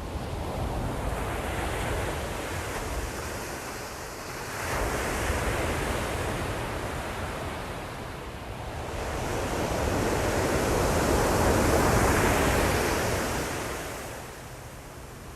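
Ocean surf: waves breaking and washing in three times, each swelling and fading over a few seconds, the last the loudest.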